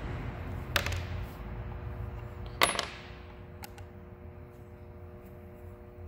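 Screwdriver clicking against the metal body of a military truck's master light switch as its screws are worked off: two sharp clicks about two seconds apart, the second louder, then a fainter one.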